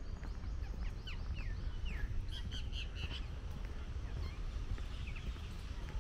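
Several birds calling: many short chirps that slide down in pitch, with a quick run of repeated notes about two and a half seconds in, over a steady low rumble.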